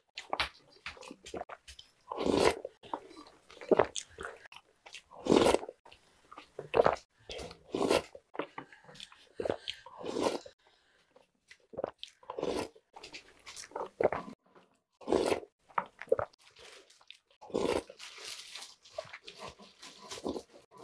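Close-miked chewing and crunching of spoonfuls of Jolly Pong puffed-wheat cereal and Oreo cookies in milk, in irregular crunchy bites.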